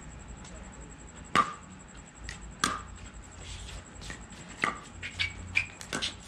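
Pickleball paddles striking the hard plastic ball in a rally: sharp, hollow pops. The loudest comes about a second and a half in, and the hits come faster and softer near the end.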